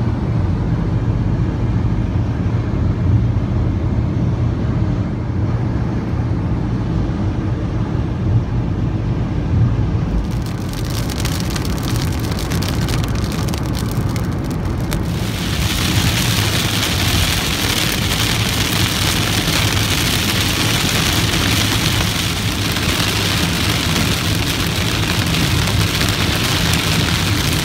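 Steady low road and engine rumble inside a moving car. About ten seconds in, rain starts hitting the windshield, and from about halfway on it becomes a loud, even hiss of rain on the glass and roof over the road noise.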